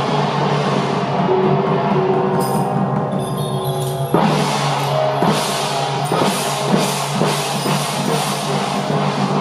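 Festive drumming from a drum troupe of snare and hand drums, with drum strikes coming in an uneven beat over steady sustained tones.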